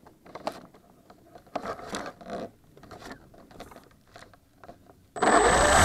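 Scrapes, rubs and light knocks as an electric model glider with an onboard camera is handled. About five seconds in, its electric motor and propeller start abruptly: a loud rushing noise with a steady high whine.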